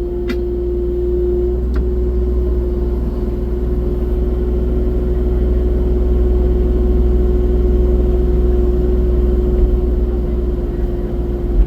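Excavator engine and hydraulics running steadily, a low rumble with a constant whining hum over it. A couple of light clicks come in the first two seconds.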